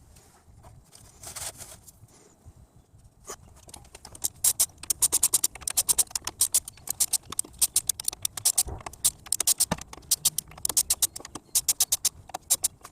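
Ratcheting wrench clicking in quick runs of strokes as a fitting is tightened, starting about four seconds in and going on until near the end.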